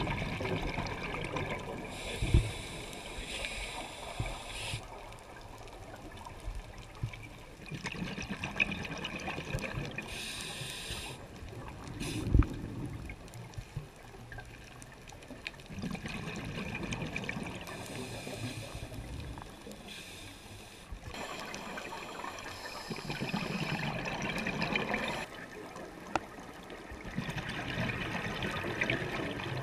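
A scuba diver's regulator breathing underwater, heard through a GoPro housing: rounds of bubbling, gurgling exhalation come and go every few seconds. Two sharp knocks stand out, about two and twelve seconds in.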